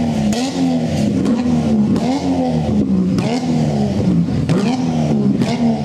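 A tuned car's engine is revved over and over in quick blips, the pitch climbing and falling about once a second. Sharp exhaust pops and bangs come through the revs as flames shoot from the tailpipe.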